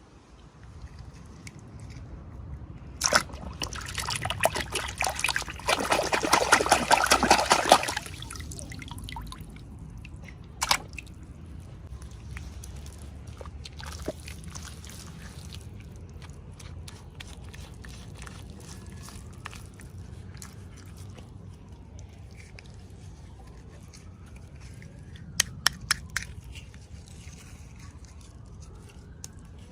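Toy packaging being handled and opened: a few seconds of dense crinkling and tearing, then scattered clicks and taps.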